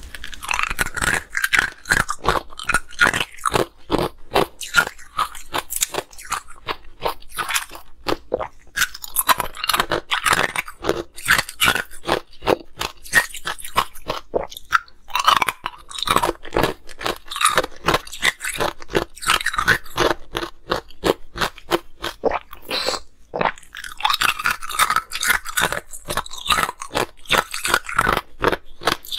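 Ice being bitten and chewed close to the microphones: a fast, continuous run of crisp crunches and cracks, with short pauses about a third of the way in and again about three-quarters through.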